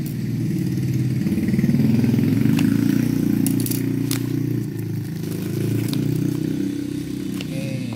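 An engine running steadily and low-pitched, swelling slightly then easing. Over it come a few faint crinkles and clicks of bubble wrap and packing tape being handled.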